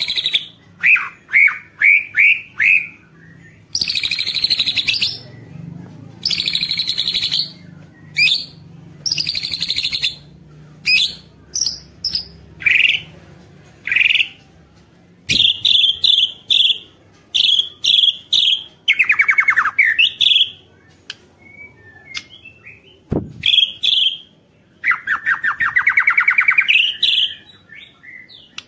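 White-rumped shama singing hard: a varied song of clear whistled notes, fast falling trills and harsh rasping bursts about a second long, delivered in quick phrases with short gaps.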